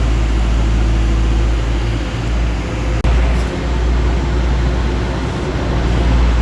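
Diesel engine of a Caterpillar 420 backhoe loader running steadily with a deep drone, with a brief break in the sound about three seconds in.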